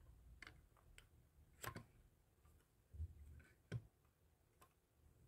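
Faint, scattered clicks and taps at irregular intervals, about six in all, with a soft low thump near the middle, against near silence.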